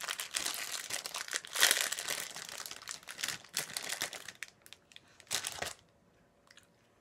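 A sweet wrapper being handled and unwrapped: dense crinkling that thins to a few short crinkles after about four seconds.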